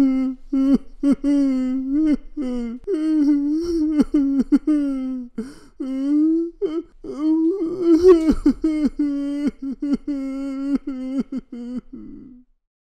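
A cartoon character's voice chattering and humming in wordless, nonsense syllables at a high, fairly steady pitch, broken into many short phrases. It stops shortly before the end.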